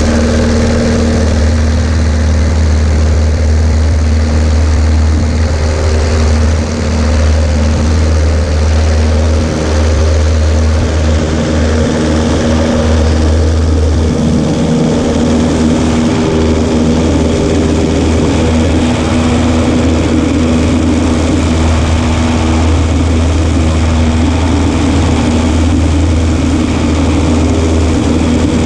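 Cessna 140A's piston engine and propeller running steadily with a constant loud drone.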